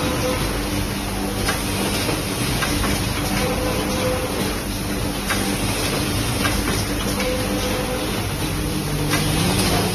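Automatic spine pocket welding machine for lever arch files running: a dense mechanical clatter and hum with short steady tones coming and going and sharp clicks every second or two. A tone rises in pitch near the end.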